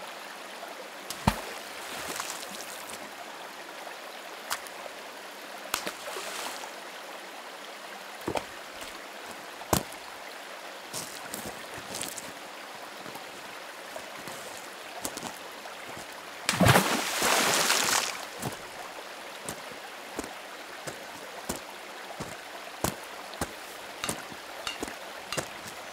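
Stream flowing: a steady rush of water with scattered sharp ticks and drips, and a louder burst of rushing noise lasting about a second and a half, about 17 seconds in.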